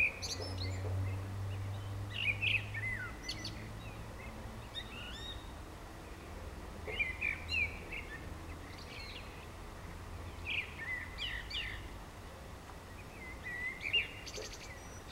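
Common blackbird singing: short, varied whistled phrases every couple of seconds with pauses between them, over a steady low hum.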